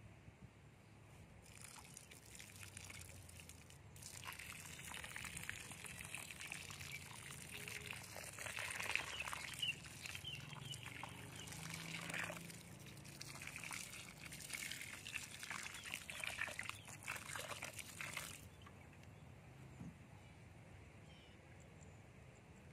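Water poured from a plastic container onto the potting soil around a newly planted papaya seedling, splashing and trickling. It starts about a second and a half in, gets louder after a few seconds, and stops a few seconds before the end.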